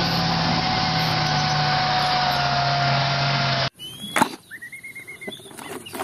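Tank driving through shallow water: its engine and running gear make a steady drone with a low hum and a faint whine that slowly falls in pitch. The sound cuts off abruptly about three and a half seconds in. Quieter clicks and knocks of plastic toys handled in a basket follow, with a brief warbling high tone.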